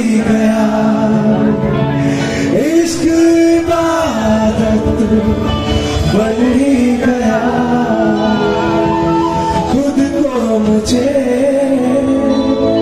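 A male vocalist singing a song with live band accompaniment, holding long notes that bend in pitch.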